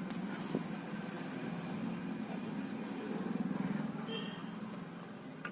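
Low rumble of motor traffic, swelling about three seconds in as a vehicle passes, then fading.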